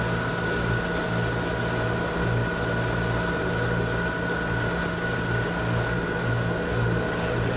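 Motorboat engine running at a steady drone, with a low throb that swells about once a second over a rush of wind and water.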